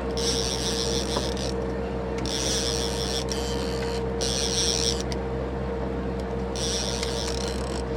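Boat engine running steadily with a low hum, overlaid four times by a high mechanical whirr lasting about a second each time.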